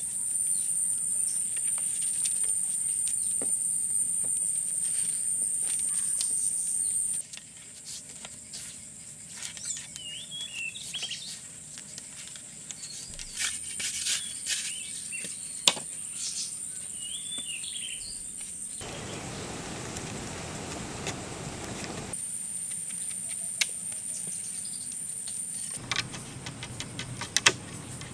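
Jungle insects making a steady high-pitched whine that stops and starts again twice, with a few short bird calls. A few sharp knocks from hand tools stand out now and then.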